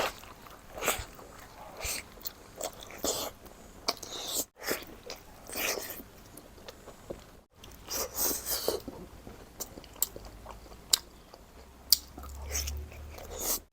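A person biting and chewing a pork momo (dumpling) close to the microphone, in short, irregular mouth sounds.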